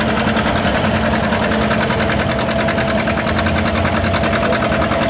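Farm tractor engine running steadily under load, pulling the sled, with a fast even beat of firing pulses.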